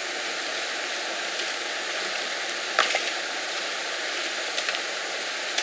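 Steady rushing noise with a few sharp knocks: hand hoes striking earth and stone, twice about three seconds in and again near the end.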